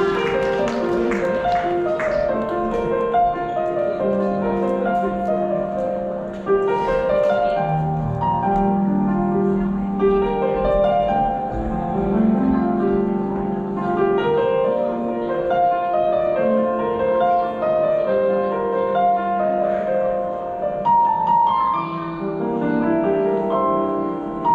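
Piano music playing a melody, as processional music for the mothers' entrance.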